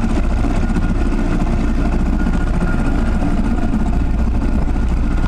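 Motorboat engine running steadily, heard from aboard the boat as a constant low drone.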